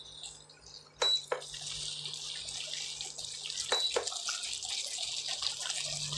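Cornstarch-thickened stir-fry sauce simmering and sizzling in a hot wok with pork and broccoli. A steady hiss sets in about a second in, with a few light clicks.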